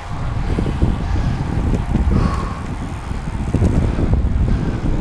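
Wind buffeting the microphone of a camera on a road bike ridden at race speed in a group: a loud, fluctuating low rush of noise.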